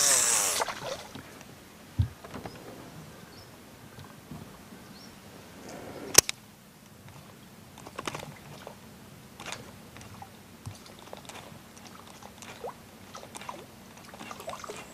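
Casting reel whirring as the line pays out on a cast, its spool slowing down, then the lure landing with a soft thud. One sharp click about six seconds in, then scattered small splashes and ticks as the pencil popper is twitched across the surface.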